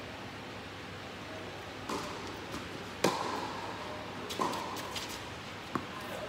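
Tennis ball being struck by rackets and bouncing on a hard court during a rally: a few sharp hits, the loudest about three seconds in.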